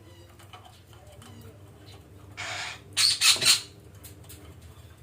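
Betet parakeet squawking: a short harsh rasp, then three loud, harsh screeches in quick succession about three seconds in.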